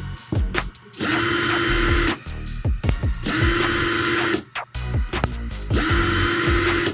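J.C. Kawasaki 18 V cordless impact drill with a brushed motor, run without load in three short trigger pulls of about a second each. The motor whines at a steady pitch while the trigger is held, then winds down with a falling pitch between pulls.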